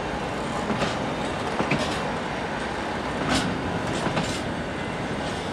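Freight train grain hopper wagons rolling past close by: a steady rumble of wheels on rail, broken by sharp clacks, several in quick pairs, as the wheels cross rail joints.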